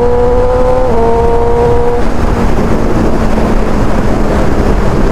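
Suzuki GSX-R 600 K7's inline-four engine running at steady revs while riding, its note dipping slightly twice. About two seconds in, the engine tone gives way to a steady rush of wind and road noise.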